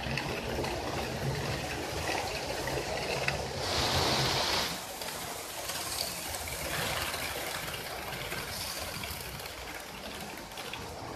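Model train running past on the layout's track: a steady rushing rumble of wheels on rail, swelling louder for about a second about four seconds in.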